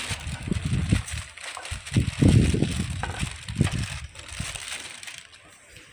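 A plastic sack rustling as quicklime is poured out of it into a metal bowl on a scale, over an uneven low rumble like wind on the microphone. It is loudest about two seconds in and dies away near the end.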